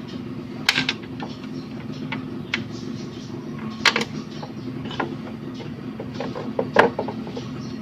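Sharp clicks and knocks of metal parts and screws being handled while a window-type air conditioner is put back together, the loudest near the end, over a steady low hum.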